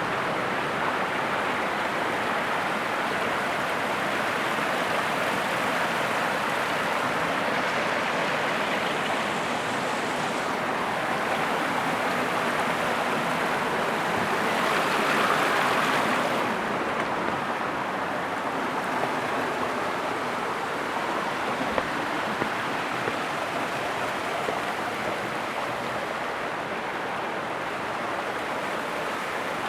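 Waterfall: a steady rush of falling water that swells briefly about halfway through.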